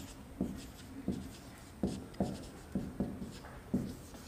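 Marker pen writing on a whiteboard: a series of short, sharp strokes and taps, about two a second.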